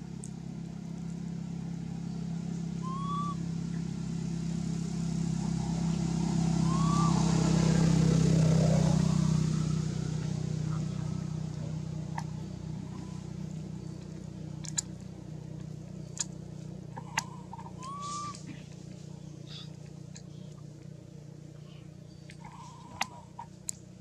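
A motor vehicle passing by: its engine hum swells to its loudest about eight seconds in, then fades away. A few short rising chirps and some light clicks sound over it.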